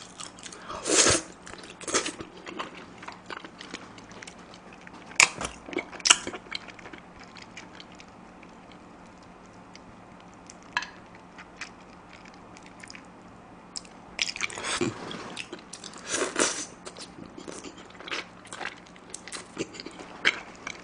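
Close-miked eating sounds of a person biting, chewing and smacking their lips on spicy chicken feet in broth, working the meat off the small bones. The noises come in scattered short clicks and smacks, fall quiet for a few seconds in the middle, then come thick and fast again for several seconds near the end.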